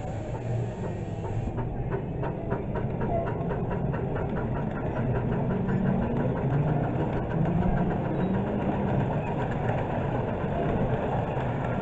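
Miniature steam train pulling away and its carriages rolling past. A quick, regular beat sets in about a second and a half in and fades after a few seconds, over a steady running rumble.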